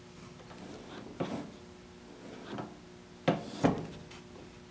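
Wooden workpiece bumped and shifted on a drill press table while it is lined up against the fence: a few short wooden knocks, one about a second in and two close together a little past three seconds, with quiet handling sounds between them.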